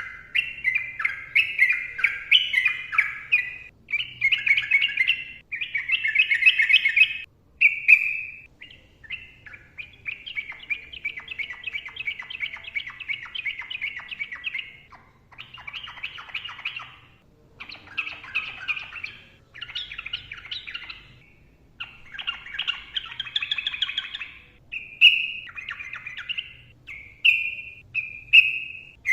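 Sooty-headed bulbul (trucukan) singing in quick, jumbled phrases. Near the middle it gives one long rapid trill lasting about five seconds, then shorter bursts and a few short clear ringing notes near the end.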